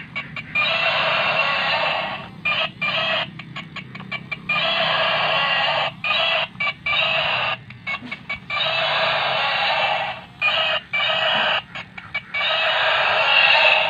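Battery-operated walking toy triceratops playing its electronic roar through a small tinny speaker, in blasts of one to two seconds with short choppy breaks between them, over a steady low hum.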